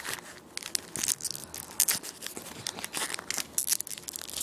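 Pokémon trading-card booster pack wrapper crinkling and being torn open by hand: a dense, irregular run of sharp crackles.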